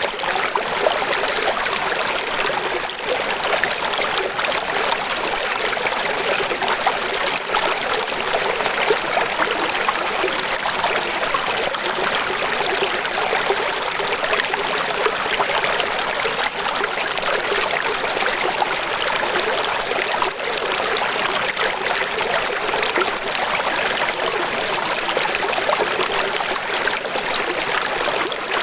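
Steady rush and trickle of running water, an even, unbroken flow with no calls or other events over it.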